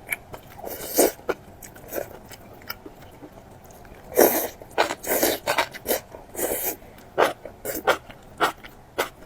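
Close-miked eating sounds: irregular wet chewing and smacking, in short bursts, with a longer, louder run of mouth sounds about four seconds in.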